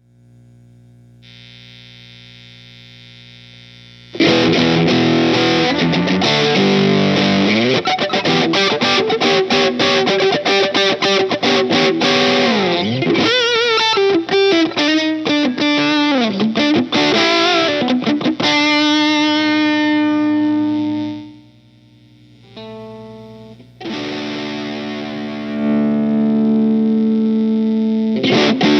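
Electric guitar played through a Boss Turbo Distortion (DS-2) pedal: a quiet held note, then about four seconds in, loud fast distorted riffing with string bends, and after a short drop, sustained ringing distorted chords.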